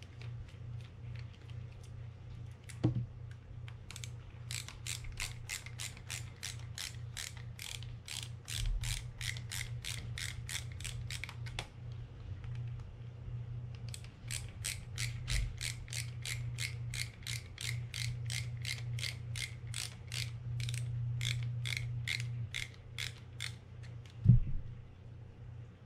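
Ratcheting screwdriver clicking evenly, about four clicks a second in two long runs, as it backs out the screws of a fishing reel's side plate, over a low steady hum. A single sharp knock near the end is the loudest sound.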